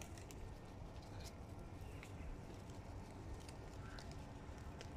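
Hooded crows moving about on crusted snow: a few faint, scattered clicks and taps of feet and beaks, over a low steady background rumble.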